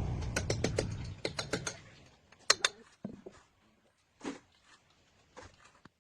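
A low rumble fading out over the first couple of seconds under a quick run of sharp clicks, two louder clicks about two and a half seconds in, then scattered clicks and knocks.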